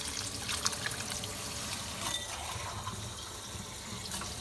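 Water running steadily from a kitchen tap, with a few light clicks and clatters.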